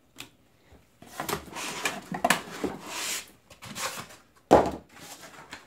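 Cardboard box and foam packing scraping and rustling as a 48-port rack switch is slid out of its packaging, then a single thump about four and a half seconds in.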